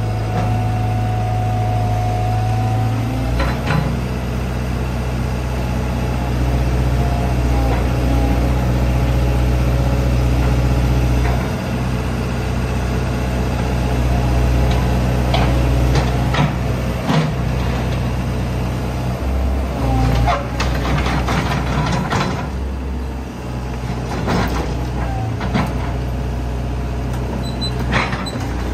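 Hitachi ZX120 crawler excavator's four-cylinder diesel engine running at a steady speed, with a low, even hum. Several sharp clanks and knocks come at intervals, most of them in the second half.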